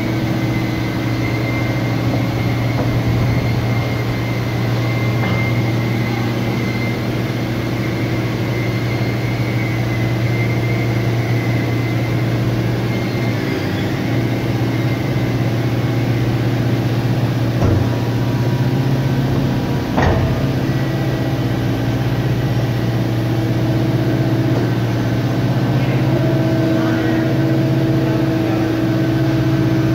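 Automatic high-frequency wood panel press running with a steady, loud hum. Two sharp knocks come about two seconds apart past the middle.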